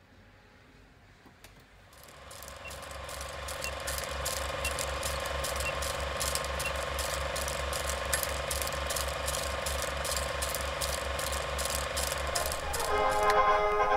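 Old film projector running: a fast, even mechanical clatter over a steady hum that fades in about two seconds in. Music begins near the end.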